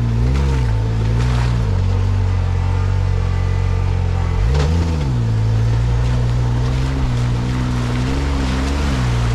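A Can-Am Maverick R side-by-side's engine running at low speed while the machine crawls a rough trail. It revs up and back down briefly near the start and again at about four and a half seconds, then holds a steady low drone.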